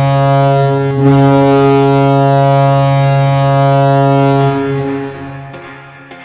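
Toronto Maple Leafs NHL goal horn blowing one loud, steady low note, with a brief break about a second in. It stops about four and a half seconds in and fades away.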